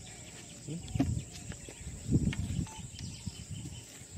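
Steady high chirring of insects, with a few low bumps and rustles of handling close by, the loudest about a second in and around two seconds in.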